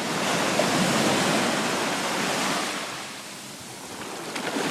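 Ocean surf: a big wave breaking and rushing up the beach, the wash swelling for a couple of seconds and then fading away.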